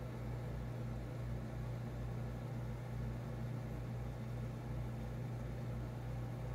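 Steady electric hum of reef aquarium pumps, with a low throb underneath that pulses about twice a second.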